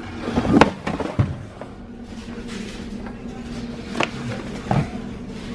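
Cardboard shoeboxes being handled and pulled off store shelves, with a few sharp knocks, over faint background music.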